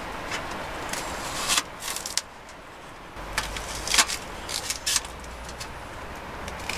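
Opinel folding knife cutting a long green onion on a metal tray, with a series of irregular sharp knocks as the blade strikes through onto the tray.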